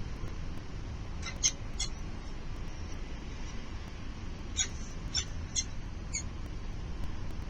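Falcons at the nest giving short, high-pitched calls: three in quick succession, then four more a few seconds later, over a steady low rumble.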